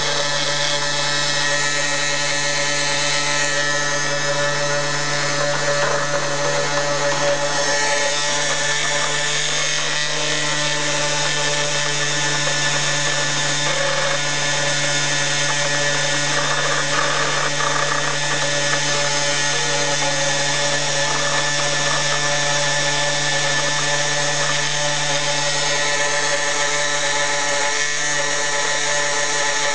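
Homemade CNC milling machine running, its small 2D-7 electric spindle motor whining steadily with a continuous drill-like tone.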